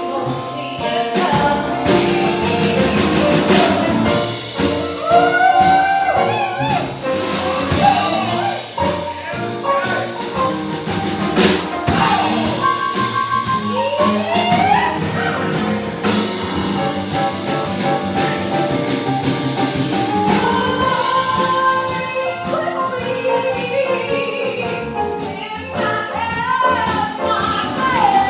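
Jazzy stage music: a singer over band accompaniment with a drum kit, the melody sliding and wavering in pitch.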